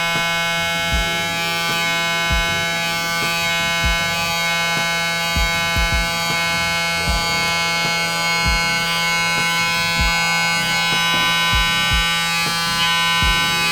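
Electric hair trimmer running with a steady buzz while it lines up a hairline, with soft low knocks every second or so.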